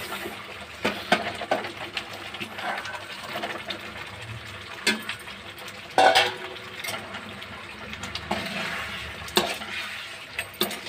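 Fried potatoes being tipped from a steel bowl into thick masala gravy in a kadhai, with scattered metal clinks and knocks against the pan, the loudest about six seconds in. Near the end a slotted metal spoon stirs through the gravy.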